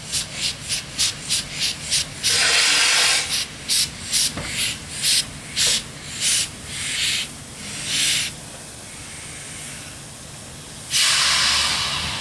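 Great Western Railway steam railmotor No. 93 working under steam: quick, regular exhaust chuffs that come further apart and fade away, with a long loud hiss of steam about two seconds in and another near the end.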